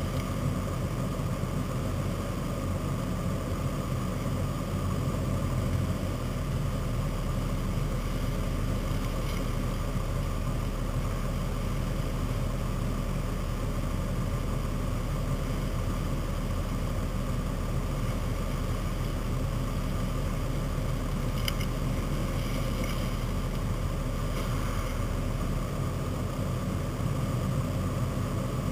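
Off-road 4x4 engine running with a steady low drone as the truck drives through a shallow river crossing.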